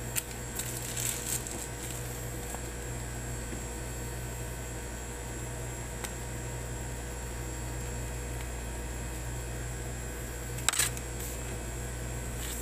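Steady electrical mains hum, with a few light clicks in the first second and a half and a louder short cluster of clicks about eleven seconds in.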